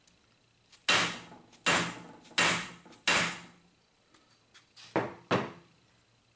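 Non-marring hammer striking a stainless steel knife blade laid on the anvil surface of a cast iron bench vise, to straighten the blade's bent point. Four blows about three-quarters of a second apart, then two quicker ones near the end, each ringing briefly.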